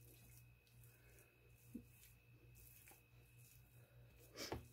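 Near silence: faint room tone with a steady low hum and a few soft, faint sounds of a spatula spreading thick peanut-butter-bar dough on a metal sheet pan, with one brief louder rustle near the end.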